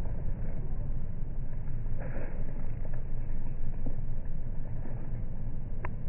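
Wind buffeting the microphone: a steady, gusting low rumble, with a faint short click near the end.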